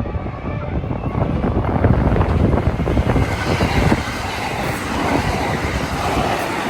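521 series 1000 subseries electric multiple unit passing close by, its wheels rattling in a quick run of clacks over the rail joints, louder from about two seconds in.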